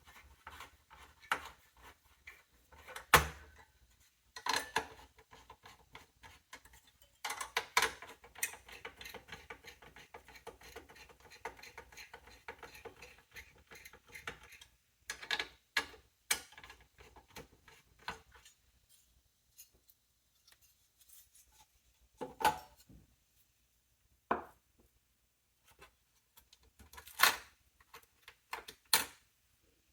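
Scattered clicks, taps and knocks of small metal and plastic computer parts being handled inside a desktop PC's case during a CPU swap. The loudest knocks fall about 3 s, 8 s and 27 s in.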